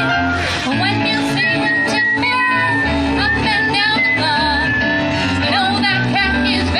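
A vocal ensemble singing a song into microphones through a PA system, several voices in harmony over a low bass line.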